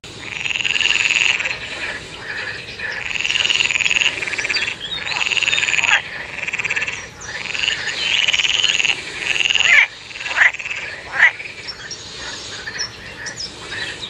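Green water frog calling: a run of long, rattling croaks, each about a second and a half, repeated about every two seconds. After about ten seconds they give way to two short, sharp calls.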